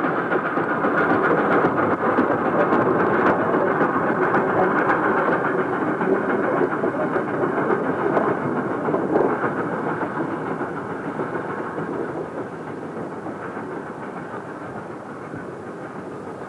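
Steam rack locomotive B 2503 working along the line with its coach, a steady noisy din of exhaust and running gear that fades gradually over the last several seconds as the train moves away.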